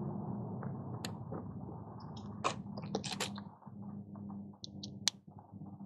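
Scattered small plastic clicks and taps as a braided charging cable is plugged into a panel-mounted USB socket and into a phone.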